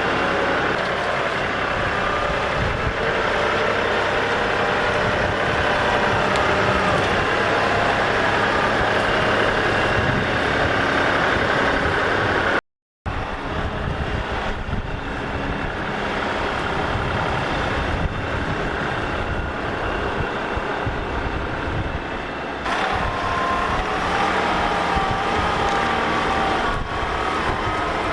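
LS MT240E compact diesel tractor running under load while working dirt, its engine note drifting up and down. The sound cuts out briefly about thirteen seconds in, and the pitch changes about twenty-three seconds in.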